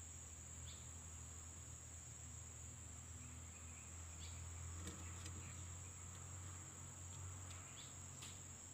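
Faint background of insects droning steadily at a high pitch, with a low hum underneath and a few faint ticks around the middle and near the end.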